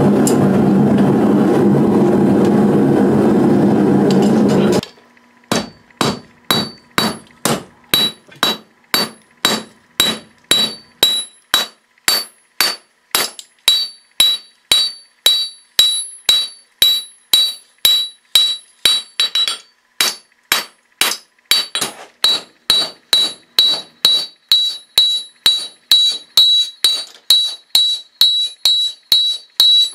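Gas forge burner running with a steady rushing noise for about five seconds, then a hammer forging hot high-carbon steel on an anvil, about two blows a second, each blow ringing high off the anvil.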